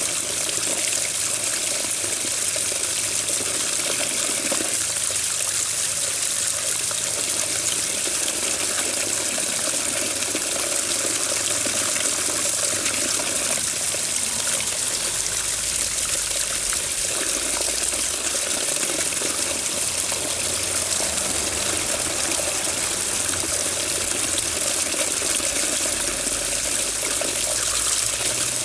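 Water running steadily, an even, unbroken flow.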